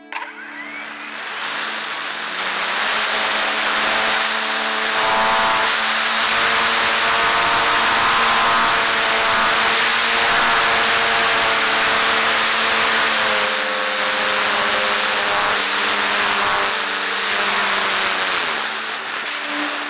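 Electric motor and propeller of a ParkZone Radian sailplane spinning up with a quick rising whine right at the start, then running at high throttle under loud wind rush on the plane-mounted microphone. Near the end the whine falls in pitch as the motor is throttled back.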